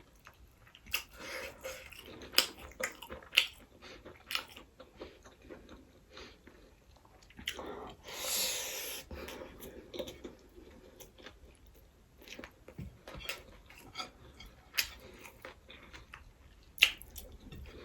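Close-up eating sounds of a person chewing fried rice with sausage, mushroom and egg: wet mouth clicks and smacks scattered throughout. About eight seconds in there is a longer, noisier sound lasting about a second and a half.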